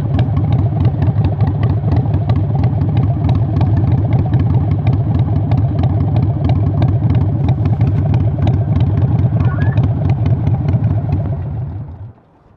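Harley-Davidson 883 Sportster's air-cooled V-twin, fitted with Vance & Hines Short Shots exhaust, idling with a steady, loud pulsing rumble. It is shut off near the end.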